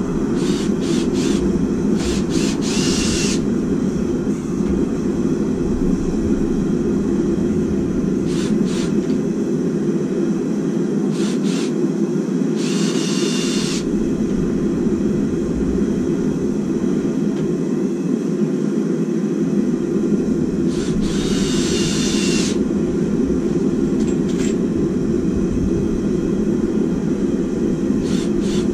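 A handheld power drill running in short bursts, about four times for one to two seconds each, as it works into the treadle hammer's wooden post. Between the bursts there are a few short clicks, all over a loud, steady low roar.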